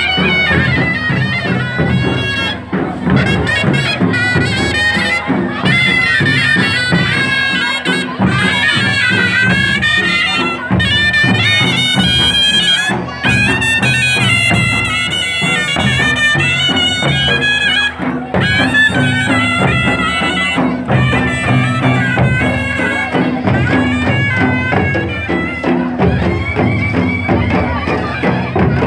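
Loud procession music: a shrill reed wind instrument playing a wavering, ornamented melody over a steady low drone and a dense drumbeat.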